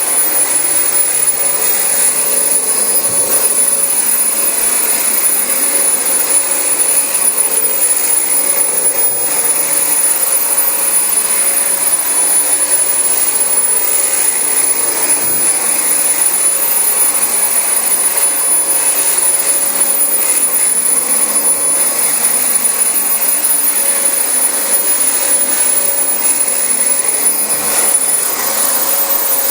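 Dyson DC25 bagless upright vacuum cleaner running steadily over carpet, a continuous rushing noise with a constant high-pitched whine.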